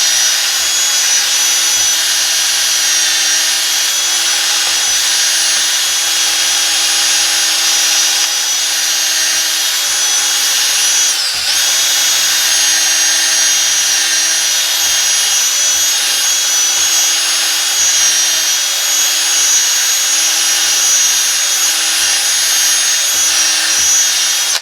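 Electric drill running steadily at full speed, boring a deep hole into heart pine with an extra-long drill bit. Its pitch dips for a moment about eleven seconds in, and it stops at the very end.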